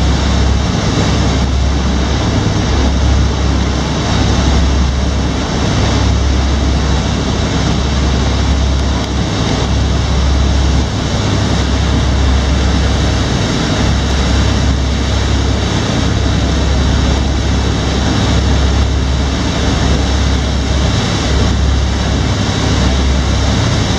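A tour boat's engine drones steadily at cruising speed, with water rushing in the wake and wind on the microphone.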